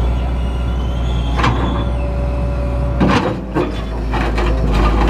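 Excavator diesel engine running steadily under a hydraulic whine, with several metallic knocks and scrapes from the working bucket and thumb, one about one and a half seconds in and a cluster from about three seconds on.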